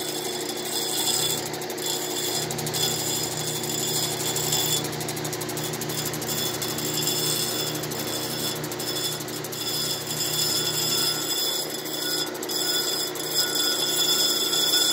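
Diamond Pacific Genie cabbing machine running with a steady hum and high whine as a turquoise cabochon on a dop stick is ground against its wet diamond wheel, with scratchy grinding coming and going as the stone is pressed on and eased off several times.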